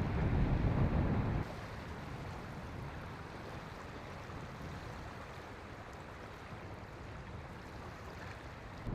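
Wind buffeting the microphone with a low rumble, which cuts off abruptly about a second and a half in, leaving a steady faint outdoor hiss.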